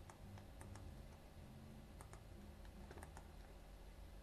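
Faint, scattered clicks of a computer mouse and keyboard, some in quick pairs, over a low steady room hum.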